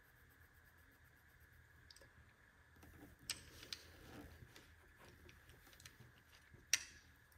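Quiet marker strokes on paper while coloring, with a few sharp clicks, the loudest near the end.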